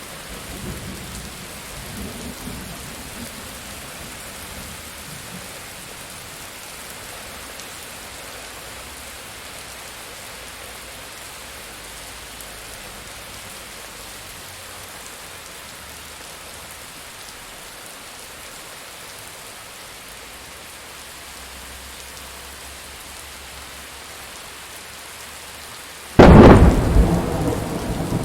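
Steady rain falling, with a faint low rumble of thunder in the first few seconds. Near the end a sudden, very loud thunderclap cracks and keeps rumbling.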